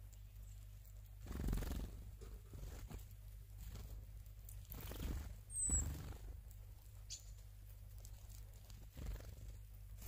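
Tits at a bird feeder: a few short, thin, high call notes, one falling, about six and seven seconds in. Two soft low thuds, one about a second and a half in and one about six seconds in, over a steady low hum.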